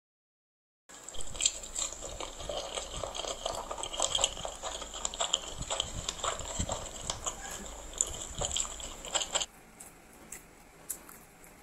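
Close-up mouth sounds of a person eating instant noodles: wet slurping and chewing with many small clicks and smacks. It starts about a second in and goes quieter after about nine seconds.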